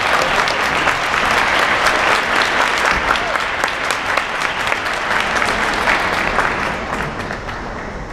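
Audience applauding after a dance routine, the clapping thinning out and fading near the end.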